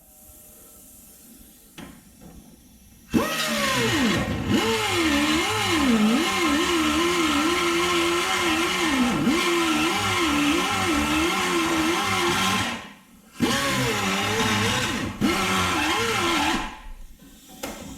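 High-speed cut-off wheel grinder cutting through the rusted steel of a car's frame rail, its whine dipping in pitch and recovering as the wheel bites into the metal. It starts about three seconds in, stops briefly near the end, then runs again for a few seconds.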